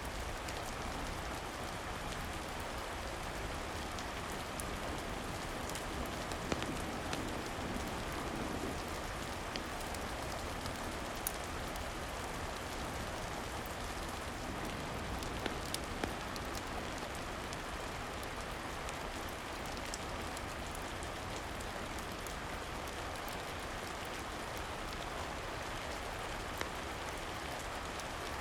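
Steady rain falling, with a few scattered sharp crackles and pops from a wood fire in a fireplace.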